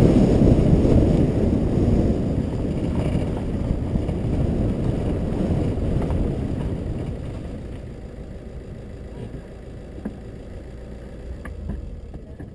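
Low rumble of a car rolling slowly, its engine, tyres and wind noise fading as it pulls onto gravel and comes to a stop, with a few faint clicks near the end.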